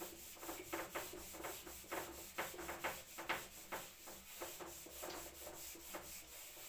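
Whiteboard duster wiping marker writing off a whiteboard in quick back-and-forth strokes, about two or three a second.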